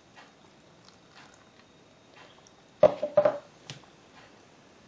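A few hollow plastic knocks close together about three seconds in, then a lighter click, as a plastic jug and tub are set down and handled on a stone countertop. Before them, only faint handling ticks.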